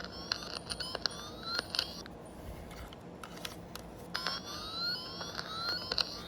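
Electronic circuit-tracer probe chirping, a tone that sweeps upward over and over, while it is moved across the wires of a harness plug to find the wire carrying the signal. The tone is strong, fades for about two seconds in the middle, then comes back strongly near the end. Sharp clicks of wires and connectors being handled come through it.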